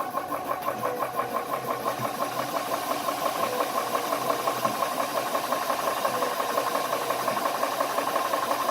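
Air Venturi Nomad II high-pressure air compressor pumping with a steady, rapid rhythmic beat over its running cooling fan, filling a PCP air rifle.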